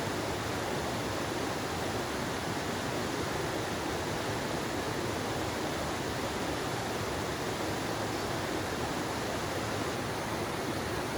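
Steady rush of a clear rainforest stream flowing over rocks, an even hiss of water with no change throughout.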